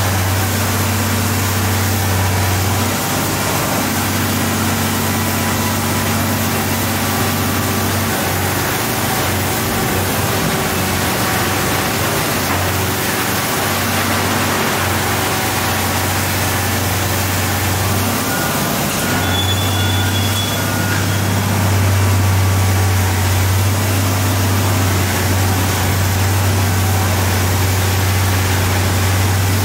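Komatsu PC1250 demolition excavator's diesel engine running under working load, a deep steady hum that dips and comes back several times as the hydraulics work the boom, over a constant noisy wash of machine and demolition noise.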